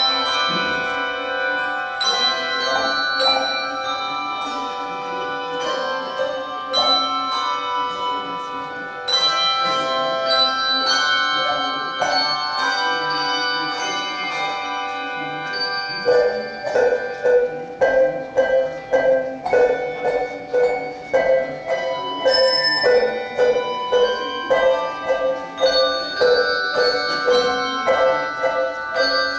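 Handbell choir playing a piece: struck bells ringing in overlapping chords with a long sustain. From about halfway a mid-low note pulses in quick repeated strokes, about two a second, under the ringing chords.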